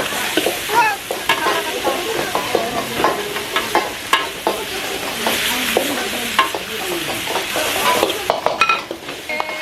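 Pad Thai noodles sizzling as they are stir-fried in a hot pan, with a spatula repeatedly scraping and clacking against the metal.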